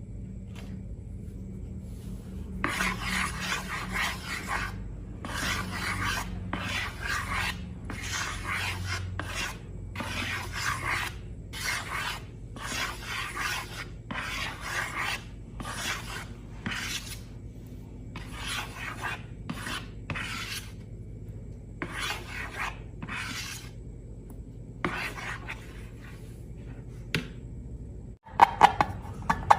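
Repeated rasping, scraping strokes, roughly one a second, with a few sharp clicks near the end.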